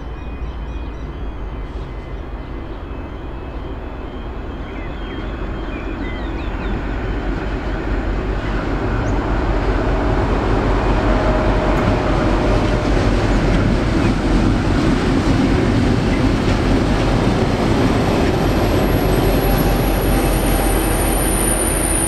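V/Line N class diesel-electric locomotive approaching and passing with its carriages: a steady low engine drone grows louder from about eight seconds in, then stays loud as the locomotive and carriages roll by on the rails.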